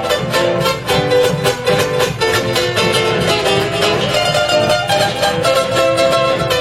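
Argentine folk chacarera played instrumentally: strummed guitars keep a fast, driving rhythm between sung verses, with a bombo drum underneath.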